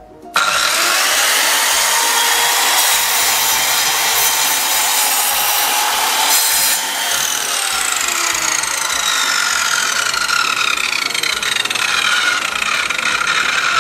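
Electric slide compound miter saw (PA SMS-190T) starting suddenly about half a second in and running loud as its blade cuts through a thick piece of wood. In the second half the motor's whine falls steadily in pitch.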